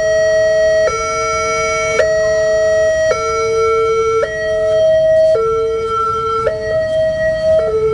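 Railway level crossing warning alarm sounding: electronic tones stepping back and forth between a higher and a lower pitch about once a second, steady and repeating.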